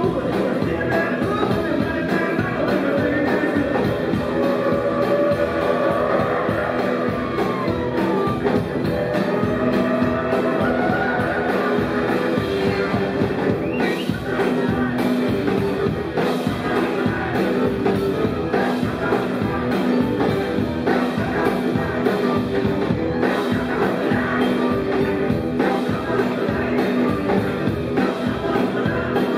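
Live rock and roll song: a band with electric guitar playing while a man sings.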